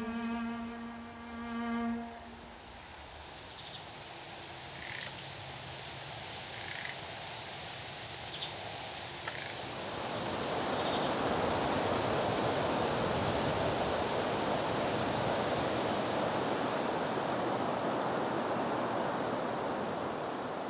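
A held cello note from the score fades out in the first two seconds, leaving faint outdoor ambience with a few short, high bird-like chirps. About halfway through, a steady rushing sound of wind or moving water comes up and stays.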